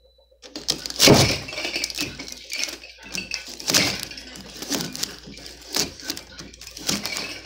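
Thin aluminum fins of an air-conditioner coil crunching and crackling as a knife blade forces them down and off the copper tubing, with irregular scraping and a few louder crunches about 1, 4 and 6 seconds in.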